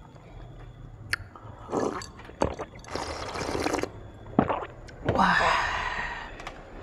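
A person drinking ice water from a glass to cool a mouth burning from chili: a few noisy sips and gulps, a sharp clink about four and a half seconds in, then a longer breathy sound that fades out near the end.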